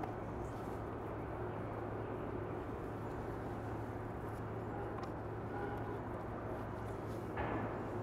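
Steady background noise with a constant low hum, and a few faint light clicks as small spacers are fitted into the rim of a clear acrylic skylight dome. A brief louder rustle comes about seven seconds in.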